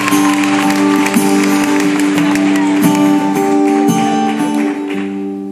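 Live rock band playing an instrumental passage between verses, with held guitar chords. The sound drops away near the end.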